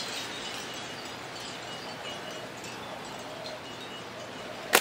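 Quiet outdoor ambience with faint short high tones, then near the end a single sharp snap as a slingshot is shot at a hanging bottle cap.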